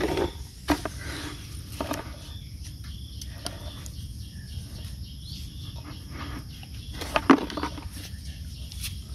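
Digging in wet sand with a wooden stick and bare hands: a few short scrapes and knocks, the loudest near the end, over a steady low rumble.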